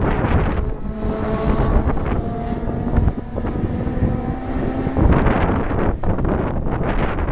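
Engines of single-seater formula racing cars running at speed out on the circuit, a steady engine note heard at a distance, with wind buffeting the microphone.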